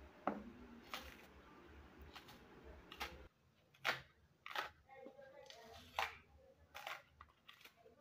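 Kitchen knife cutting and scraping the peel off an unripe plantain: short, sharp scraping clicks, roughly one a second.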